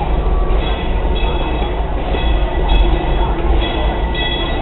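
Disneyland Railroad steam train standing at the station, a steady low rumble with short high tones repeating every half second or so, and people's voices in the background.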